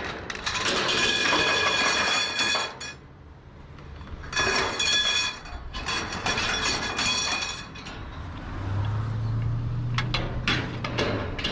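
Scrap metal pieces clattering and ringing as they are tipped onto a pile, in two long runs, followed near the end by a low steady hum and a few sharp knocks.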